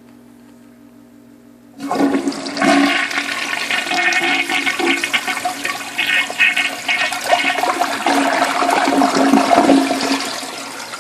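Briggs forward-trap toilet flushing with a single flat paper towel in the bowl. About two seconds in, the water rushes in suddenly and loudly and holds for about eight seconds, then eases off near the end as the flush finishes.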